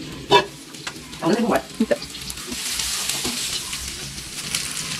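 Hot cooking oil sizzling in a wok as food fries, the frying hiss swelling about two and a half seconds in.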